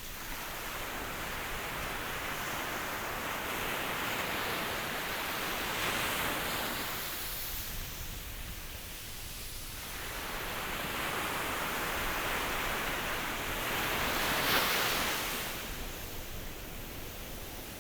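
Ocean waves breaking and washing in as surf, in two long swells: the first builds over the opening seconds and eases off, the second rises again and peaks near the end before falling away.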